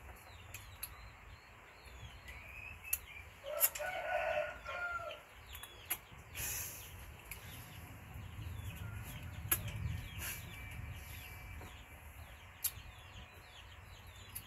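A rooster crows once, starting about two seconds in and lasting about three seconds. Around it are faint, high, short chirps, a few sharp clicks and a brief rustle.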